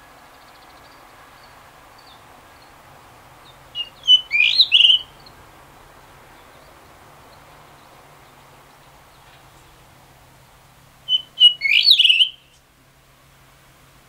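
Male blue rock thrush singing two short phrases about seven seconds apart, each a quick run of gliding notes lasting just over a second.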